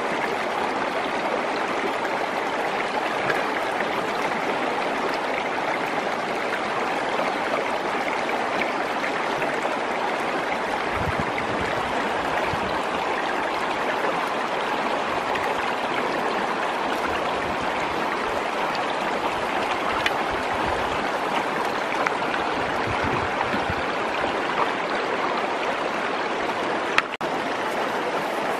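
Shallow rocky stream running steadily over stones, with a few brief knocks and low bumps from hands moving stones in the water, the sharpest knock near the end.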